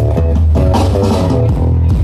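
Loud music with a heavy bass line, played through a large outdoor PA system of tower-mounted speaker stacks.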